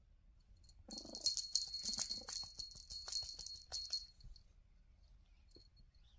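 Small jingle bell shaken hard for about three seconds as a cat rolls and kicks while playing, a dense high jingling with faint rustling underneath, then stopping.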